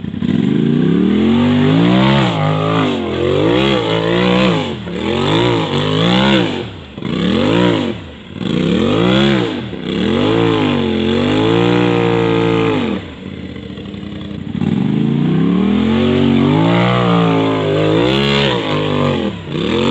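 Side-by-side UTV engine revved hard in repeated surges, about one a second, the pitch climbing and dropping each time, with a short quieter lull about two-thirds of the way through before the revving picks up again. It fits a machine spinning its tyres trying to climb a slick, muddy hill.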